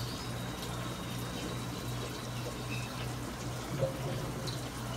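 Water running and splashing in a koi aquarium, over a steady low hum from the tank's pump.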